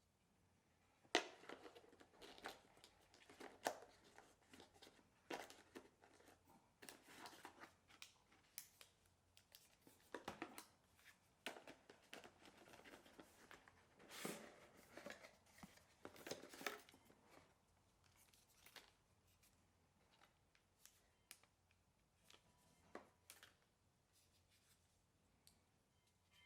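Hands opening and handling a laptop's box and packaging: irregular rustles, scrapes and sharp clicks. They come thickly for the first two-thirds, thin out, then stop a few seconds before the end.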